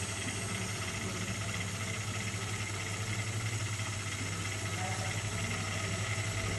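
LEGO WeDo robot's small electric motor and gears running steadily as it drives along a tabletop, a low hum with a fine rapid pulse.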